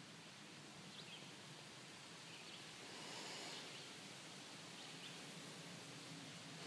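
Faint woodland ambience: a steady soft rustling hiss that swells for a moment about halfway through, with a few short, faint bird chirps.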